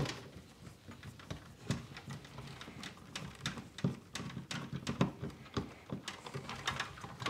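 Hand screwdriver working screws to mount a new ballast in an aquarium light fixture: scattered, irregular light clicks, taps and small knocks of tool and parts against the fixture.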